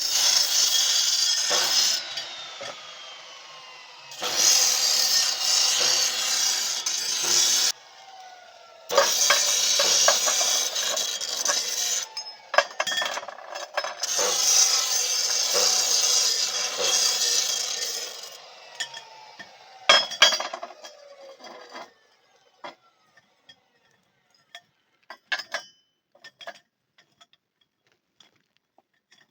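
Angle grinder working on steel in four long bursts, its motor note falling as it winds down after each. Scattered light clicks and taps follow in the last several seconds.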